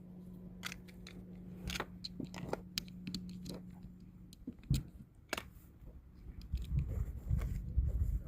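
Cartridges being pressed one by one into a gun magazine: a string of small irregular clicks, with low rumbling handling noise near the end.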